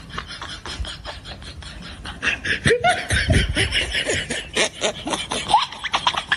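A man laughing in repeated choppy bursts, getting louder about two seconds in.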